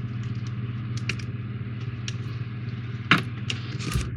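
Small clicks and taps of a screwdriver and plastic model parts being handled, with a sharper click about three seconds in and another near the end, over a steady low electrical hum.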